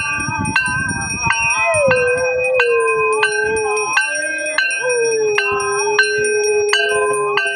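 A dog howling in long, steady notes: one starting about two seconds in with a short falling slide, a break, then a second long note. Under it a hand bell is rung about twice a second.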